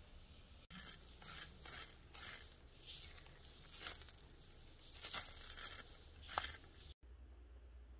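A clear, glitter-filled tape bubble being squeezed and rolled in the hand, giving a string of sticky crinkling and crackling sounds with a sharp click near the end.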